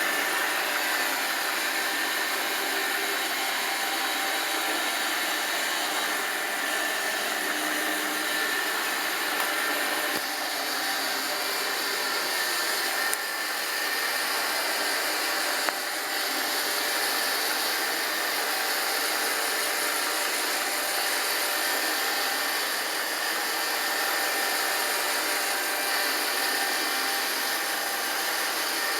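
iRobot Roomba 780 robot vacuum running while cleaning: a steady motor whir with a high whine, level throughout apart from small dips.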